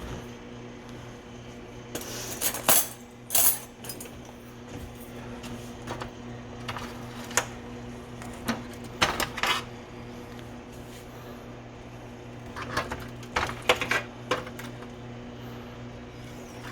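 Kitchenware being handled: scattered clinks and clatter of a baking dish and utensils in several short clusters, over a steady low hum.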